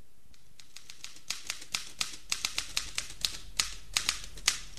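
Typewriter keys striking in an irregular run of sharp clacks, about five a second. They start faint and get louder.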